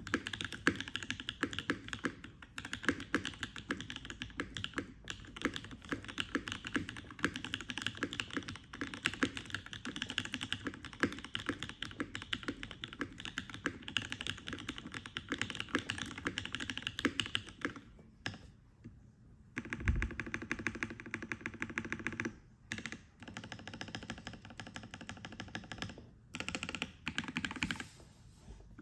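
Typing on a Mode Envoy mechanical keyboard with an aluminium plate, lubed NovelKeys Cream linear switches and GMK keycaps: a fast, steady run of key clacks. There is a short pause about eighteen seconds in, then more typing in shorter runs with brief gaps.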